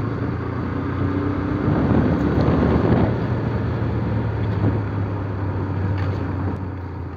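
Motorcycle engine running steadily under way, with air rushing past that swells about two to three seconds in, as the road speed rises to around 48 km/h.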